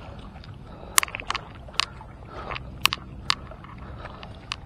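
A handful of sharp, irregular clicks from an Abu Garcia Revo SX baitcasting reel as a hooked hampala is played on the line, over a steady low rumble.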